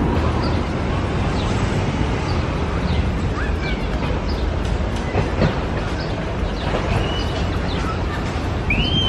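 A steady outdoor din of low rumble and hiss, with many short, high bird chirps scattered over it and an arched chirp near the end.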